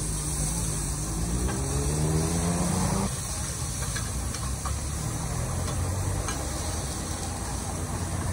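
Eggs and bean sprouts sizzling on a large shallow iron frying pan, with metal spatulas scraping and clicking against it now and then. A motor's rising hum runs under it and stops abruptly about three seconds in.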